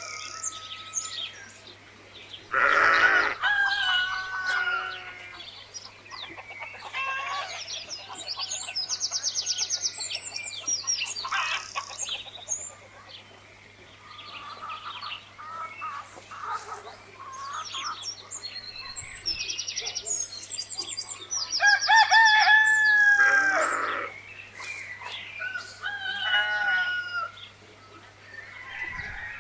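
A rooster crowing twice, about three seconds in and again about twenty-two seconds in, over small birds chirping and trilling throughout. A faint steady low hum sits underneath.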